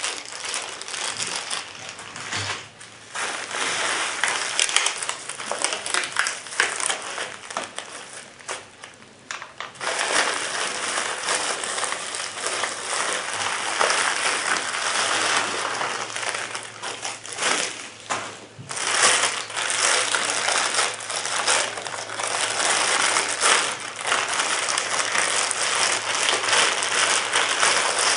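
Bubble wrap and a thin plastic bag crinkling and rustling steadily as they are pulled off a rifle scope by hand, with brief pauses about 3, 10 and 18 seconds in.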